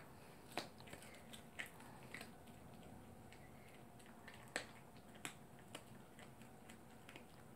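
Toy poodle chewing and crunching its food: faint, scattered sharp crunches at irregular intervals, the loudest about four and a half seconds in.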